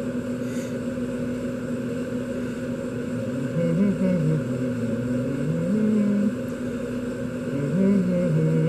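A steady mechanical hum, with a faint wavering tune or voice coming in over it from about three and a half seconds in.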